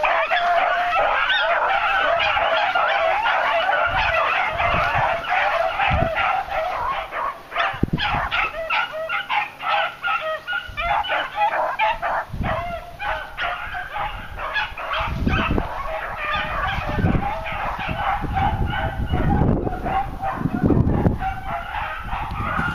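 A pack of beagles baying together in a continuous chorus of overlapping high calls, typical of rabbit hounds running a track. Low thuds come and go under the baying, more of them in the second half.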